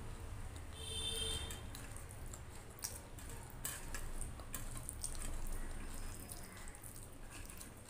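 Wet, sticky eating sounds: rice being mixed and scooped by hand on a steel plate, with squishes, clicks and smacks of chewing.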